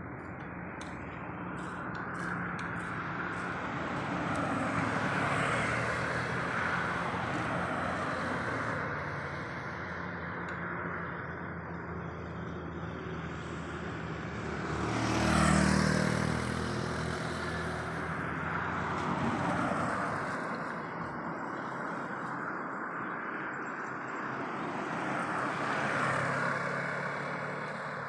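Road traffic passing on a two-lane road: cars and motorbikes approach and go by one after another, their engine and tyre noise swelling and fading, with the loudest pass about halfway through.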